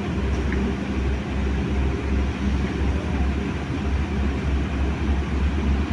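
Excavator's diesel engine running steadily, a continuous deep rumble with a faint steady hum above it.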